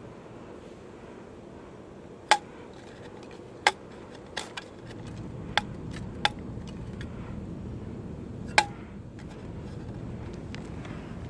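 A series of sharp metallic knocks and clinks, about seven, irregularly spaced, some with a brief ring. A low steady rumble comes up about five seconds in.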